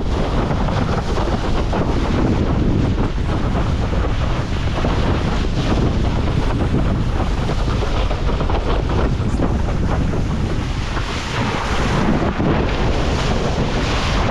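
Strong wind buffeting the microphone over the rush and splash of water under a windsurf board sailing in storm winds.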